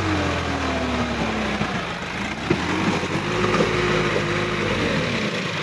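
Sonalika DI-50 RX tractor's diesel engine working as the tractor climbs out of a flooded paddy field. Its note sags over the first two seconds, picks up again about three seconds in, then drops off near the end, with a single sharp knock midway.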